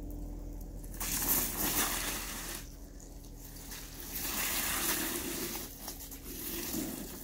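Small plastic wheels of a kneel-on shark spinner board rolling and splashing through slush and puddles on wet concrete, a noisy hiss that comes in two main stretches with a short lull between.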